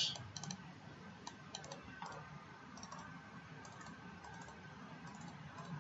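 Faint computer mouse clicks at irregular intervals over a low, steady background hiss.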